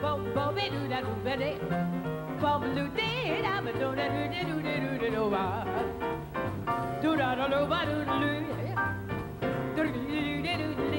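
Female jazz singer scat singing, a rapid wordless vocal line leaping and bending in pitch, over piano and an upright double bass playing a walking line.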